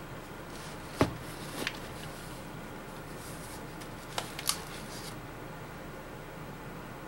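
Long cardboard shipping box handled and turned onto its edge on a workbench. There is a sharp knock about a second in, a softer knock half a second later, two clicks around four seconds, and light cardboard rustling between.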